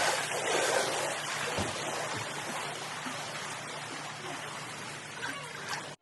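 Steady rushing and splashing of water, easing off slowly before it cuts out suddenly at the end.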